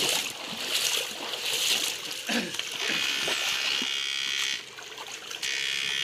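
Water splashing loudly for the first two seconds or so, then the high electric buzz of a Susan 1030 electrofishing unit sending current into the water. The buzz switches on about three seconds in, cuts off a second and a half later, and starts again near the end.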